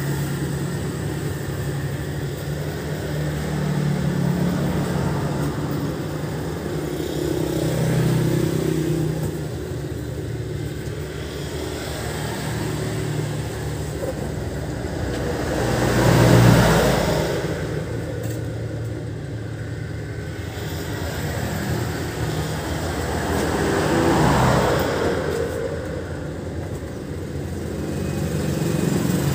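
Engine of a rice harvesting machine running steadily, swelling louder several times as it works the field, loudest about halfway through.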